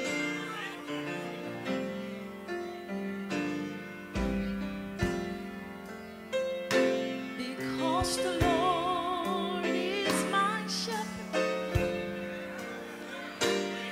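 Slow piano introduction to a song, notes and chords struck every second or so, with a wordless vocal line with wide vibrato joining about eight seconds in.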